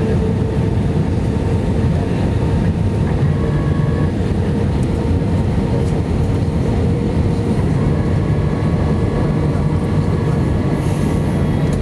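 Airbus A319-115 cabin noise: the CFM56 engines and airflow making a steady low rumble, with a faint steady tone running through it.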